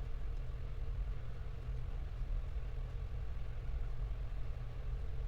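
Steady low rumble of background noise with a faint steady hum, unchanging throughout.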